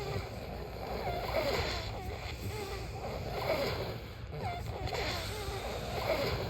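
A person snoring in their sleep, with a breath swelling about every two to three seconds over a steady low background hum.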